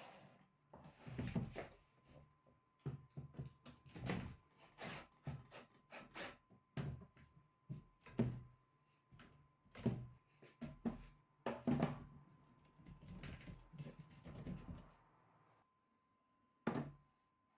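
Irregular knocks and bumps from a melamine particleboard cabinet being worked on with a cordless drill-driver, in quick clusters with short gaps. A single knock near the end as a spirit level is laid on the cabinet's top.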